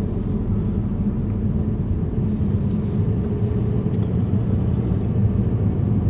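Steady low rumble inside a car's cabin.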